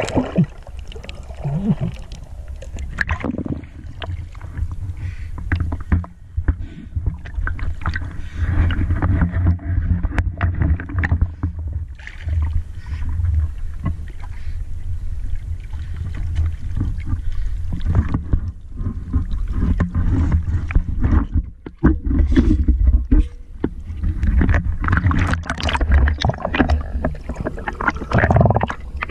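Sea water sloshing and splashing as a spear and an underwater-capable camera move through shallow water and out of it. Irregular knocks and handling noise sit over a steady low rumble.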